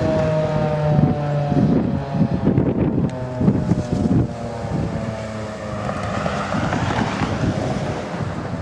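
Federal Signal 2001 electromechanical warning siren winding down at the end of its test, its tone sliding slowly lower and fading. Wind gusts buffet the microphone throughout.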